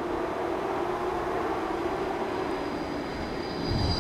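Bombardier E-class trams running, with a steady electric motor hum. A low rumble comes in near the end as a tram passes close, and a high wheel squeal is just starting.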